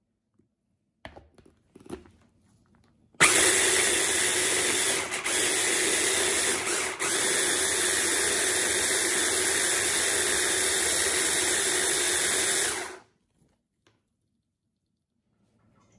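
Electric mini food chopper running, chopping onions, green chillies, tomato and egg into a paste: after a few faint clicks, the motor starts suddenly and runs steadily for about ten seconds, dipping briefly twice, then cuts off.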